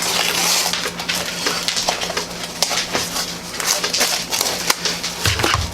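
Plastic packaging of ground beef being torn open and crinkled, a crackling rustle full of small sharp clicks, with a low thud near the end.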